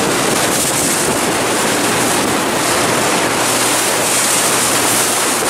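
Steady wind buffeting the microphone over sea water washing along a boat's hull, with a low steady hum underneath.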